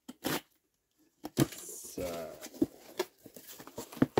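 Cardboard shipping carton being cut open with a box cutter and its flaps pulled back: two short scrapes of the blade through packing tape at the start, then cardboard rustling with several sharp knocks as the flaps fold open.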